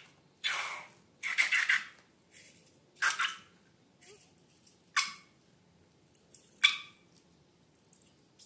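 Slime and balloons being handled, giving a handful of short, separate squishy noises with quiet gaps between them. The second is the longest and comes as several quick crackles.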